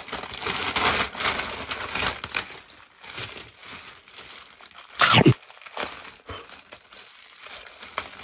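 Christmas wrapping paper crinkling and tearing as a present is unwrapped, loudest in the first couple of seconds, then a clear plastic bag rustling in the hands, with one short loud crackle about five seconds in.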